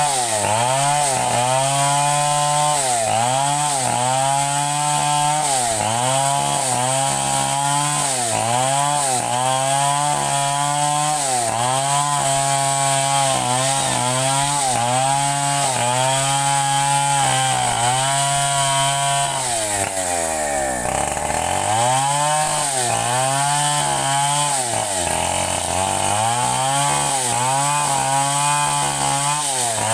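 Two-stroke chainsaw running at high speed, its engine pitch dipping and recovering about once a second as it is loaded and unloaded. About two-thirds of the way through, the engine drops briefly toward idle twice before revving back up.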